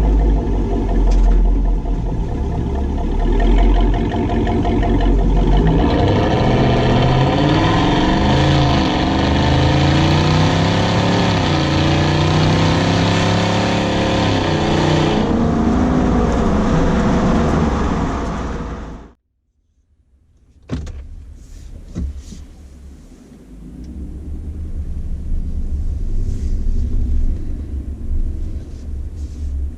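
Chevrolet Silverado's 6.2 L V8 running through a Corsa Sport cat-back exhaust, engine speed rising and falling. About two-thirds of the way in, the sound cuts off abruptly. Two sharp knocks follow, then a quieter engine rumble builds.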